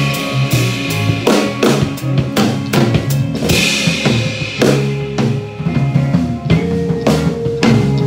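Drum kit and electric guitar playing rock together live: a steady beat of snare, bass drum and cymbal hits over a repeating low guitar riff.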